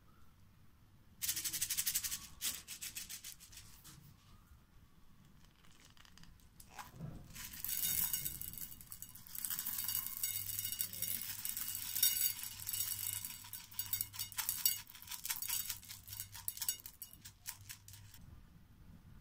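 Tiny beads poured and scattered onto slime in a glass plate, rattling and clicking against the glass in dense crackly rushes: a short one about a second in, then a longer stretch from about eight seconds until near the end.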